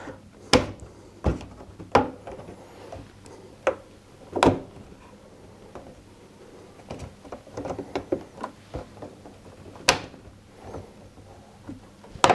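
A washing machine's rubber door seal and its sprung metal retaining band being worked onto the front panel by hand: a series of sharp clicks and knocks, about six loud ones spread out, with quieter ticking and rubbing between.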